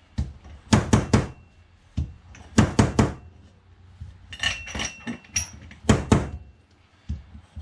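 Fork seal driver knocked repeatedly down a Suzuki SV1000 fork stanchion, driving the new oil seal into the fork leg. The knocks come in quick clusters of two or three about every second, a few followed by a faint ringing tone.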